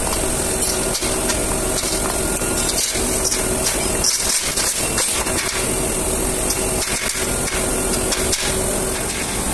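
Small hammer knocking irregularly on a flame-cut steel plate flange ring: a scattering of sharp metal knocks over a steady workshop hum.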